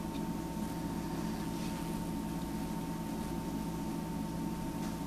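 Steady background hum with a thin, constant high tone over faint hiss, with a few faint small ticks of fingers handling the metal atomizer.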